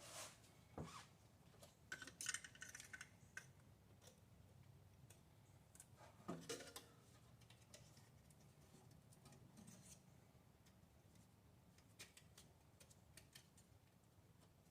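Faint, scattered clicks and light rattles of ignition parts and hand tools being handled while spark plug wires and coil packs are fitted, with a burst of rattling about two seconds in and a knock about six seconds in.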